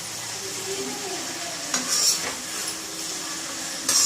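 Potatoes and broad beans frying in oil with a steady sizzle, while a spoon stirs them, scraping and clinking against the pan a few times about two seconds in and again near the end.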